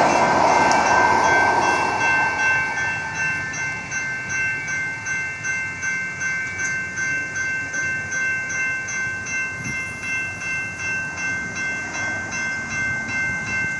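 Railroad grade-crossing warning bell ringing at about two rings a second. Under it, the rolling noise of a passing Sacramento RT light rail train fades away over the first two seconds.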